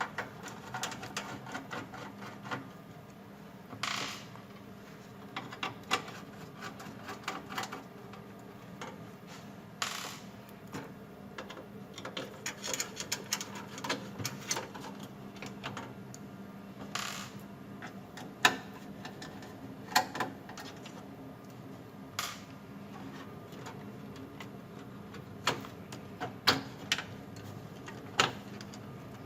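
Scattered clicks, taps and small metallic clatters of screws, screwdriver and case parts being handled while a motherboard is taken out of a computer case, with a few short scraping rasps. A faint steady hum runs underneath.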